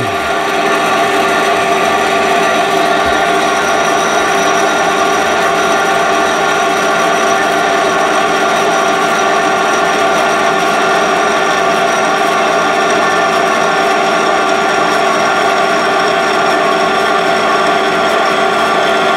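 Small metal-cutting band saw running steadily, its blade feeding down through a length of metal bar stock partway through the cut.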